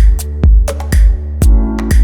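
Electronic background music with a steady drum-machine beat, about two beats a second, over held synth tones.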